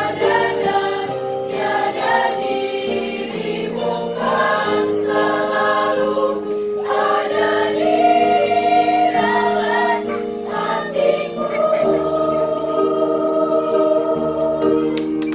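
Girls' choir singing in several-part harmony, holding long chords that change every second or two.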